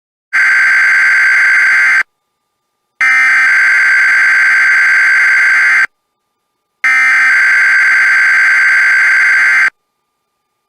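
Emergency Alert System (SAME) digital header sent three times in a row: three loud bursts of harsh, buzzing, rapidly warbling data tones, each two to three seconds long with about a second of silence between them. This coded header opens a NOAA Weather Radio required weekly test.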